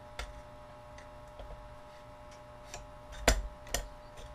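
A handful of light metallic clicks and knocks from a large sliding caliper being handled and set against the spark plug caps of a twin-cylinder engine, with two louder knocks a little after three seconds in, over a faint steady electrical hum.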